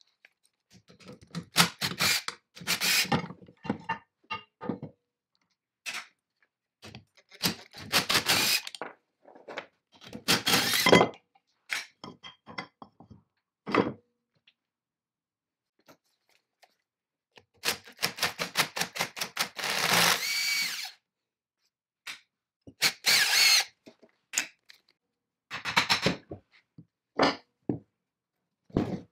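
Bursts of metal clinks, knocks and rattles from hand tools and the rusty parts of a 1940s Irvington swing saw's arbor assembly being taken apart on a wooden bench, with short silences between. A longer run of rapid clicking comes about two thirds of the way in.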